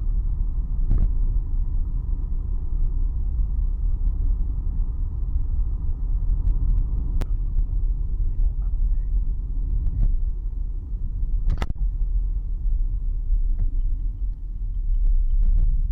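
Steady low rumble of a van driving on the road, with a few brief knocks.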